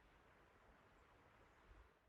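Near silence: faint background hiss with a low rumble.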